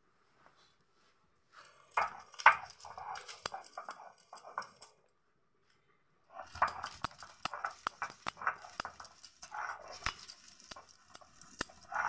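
Garlic cloves being crushed and ground on a flat stone slab with a hand-held grinding stone (Bengali sil-nora): rapid rasping strokes with sharp knocks of stone on stone and cracking cloves. It comes in two spells, the first starting about two seconds in and the second after a short pause.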